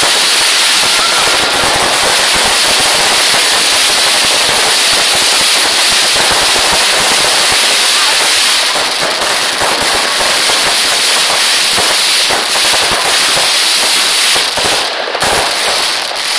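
Fireworks finale: a dense, continuous rapid crackling and popping from many bursting shells going off at once, thinning briefly near the end.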